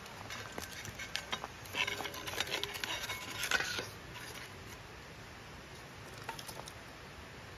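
Charred firewood knocking and scraping in a metal fire bowl as pieces are set on its grate by hand: a busy run of clicks and scrapes over the first four seconds, then only a few light clicks.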